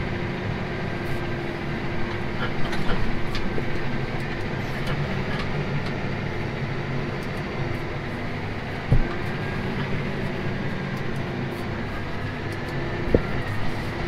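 Large farm tractor's diesel engine running steadily under way, heard from inside the cab. There is a short knock about nine seconds in and another near the end.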